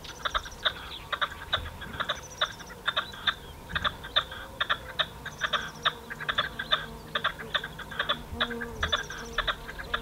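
Red-legged partridge calling: a long, rhythmic series of short, harsh clucking notes, about three or four a second.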